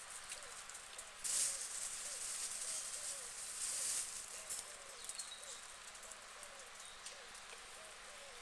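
A guinea pig chewing lettuce, heard as soft scattered clicks of crunching over a steady hiss. The hiss swells for a few seconds from about a second in.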